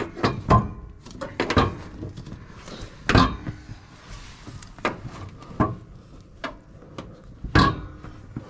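Irregular knocks and clunks as the rear roller of an AMF 82-30 pinsetter's pit carpet is pushed and worked against the machine's frame to line it up with a hole. A few strikes, about 3 and 7.5 seconds in, are louder than the rest.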